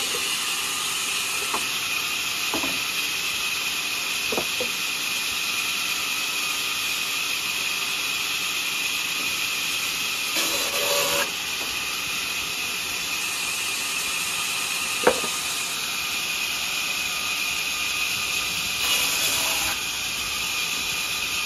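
Vertical band saw running steadily with a high whine and hiss as it rips a thick wooden slab. A few light knocks come in the first seconds, two short stretches of the cut get louder, and there is one sharp click about two-thirds of the way through.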